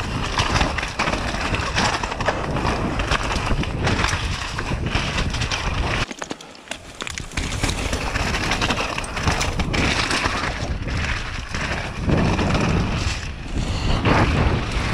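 Mountain bike riding fast down a dirt and gravel trail: tyres rolling and crunching over the surface, the bike rattling and knocking over bumps, with wind buffeting the microphone. The noise drops away briefly about six seconds in, then comes back, with a heavier rumble near the end.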